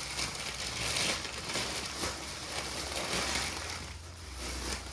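Plastic packaging rustling and crinkling as items are handled, with small clicks and taps.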